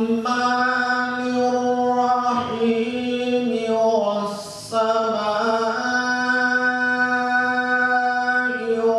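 A man reciting the Quran in the melodic tajweed style, holding long steady notes with slow ornamented turns. There is one short pause for breath about halfway through.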